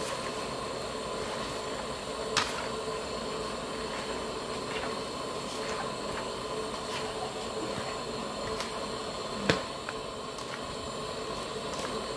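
Squid, mushrooms and vegetables frying in a large wok with a steady sizzle while a slotted spatula stirs and scrapes them. There are small ticks throughout and sharp knocks of the spatula against the wok, one a couple of seconds in and the loudest about three quarters of the way through.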